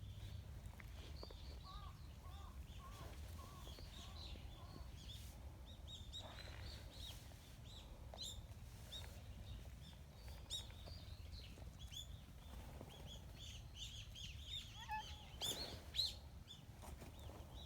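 Small birds chirping faint and often, short high notes repeated over a steady low background rumble. A run of lower repeated notes comes in the first few seconds, and a few sharper, louder sounds come near the end.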